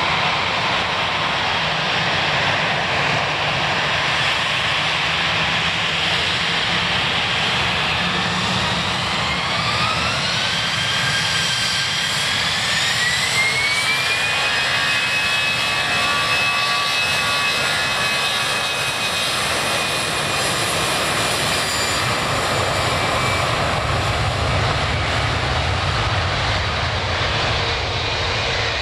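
Jet airliner's engines spooling up for takeoff: a whine rises in pitch from about ten seconds in, then holds steady at takeoff thrust over a loud, constant rush.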